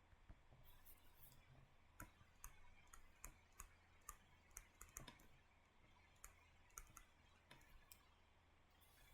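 Near silence with faint, irregularly spaced clicks over a low hum.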